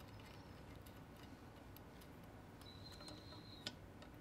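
Near-silent room tone with faint, light clicks of small metal parts being handled and fitted into a height gage's slider head, and a sharper click near the end.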